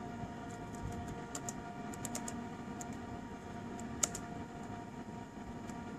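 Laptop keyboard being typed on: a scattering of soft, irregular key clicks, one sharper click about four seconds in, over a faint steady hum.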